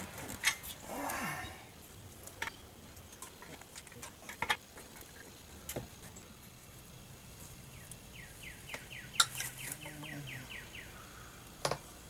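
Scattered sharp clicks and knocks as a tank and plastic pipe fittings are handled. A brief rustle comes about a second in, and a quick run of evenly spaced ticks, about five a second, comes near the end.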